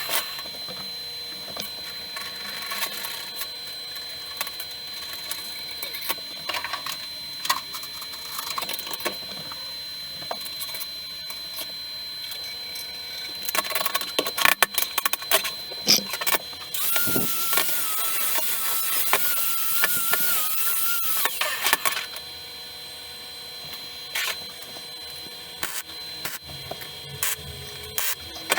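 Workshop work sounds: scattered clicks and knocks of parts and tools being handled, and a small power tool whining for about four seconds past the middle.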